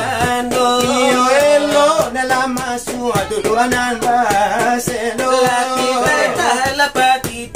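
Selawat dulang: two men singing a bending, melismatic chant with long held notes while beating large brass trays (dulang) with their hands in a quick, dense rhythm of strikes.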